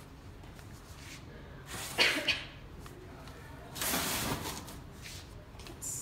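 Handling noises: a sharp knock about two seconds in, then a short rushing noise about four seconds in.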